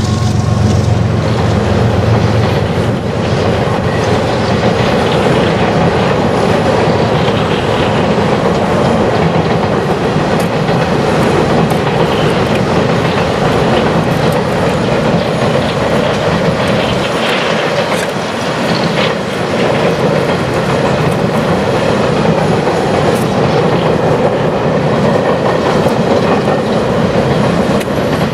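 Freight train of open-top coal hopper cars rolling past across a steel truss bridge: a steady rumble and rattle of steel wheels on the rails, with scattered clicks from the wheels.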